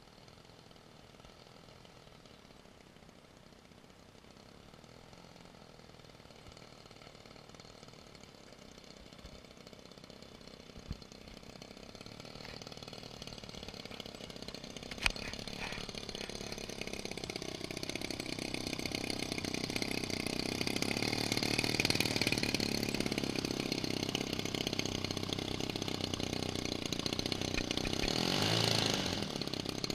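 DLE-55cc single-cylinder two-stroke gasoline engine of a large RC plane running at low throttle, growing steadily louder as the plane comes close. Two sharp clicks come about 11 and 15 seconds in, and the engine note dips and sweeps briefly near the end.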